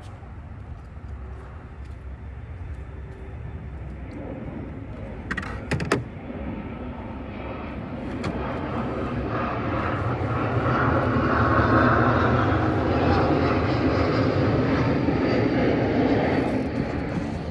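An aircraft passing overhead: a broad engine noise that swells to its loudest about twelve seconds in, then fades. A few sharp clicks come about halfway through the first half.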